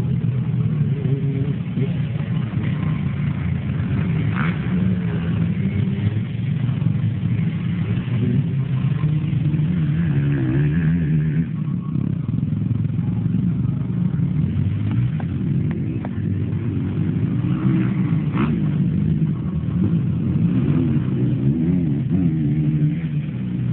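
Quadcross quad engines running on a dirt track, the pitch rising and falling as the riders accelerate, shift and back off.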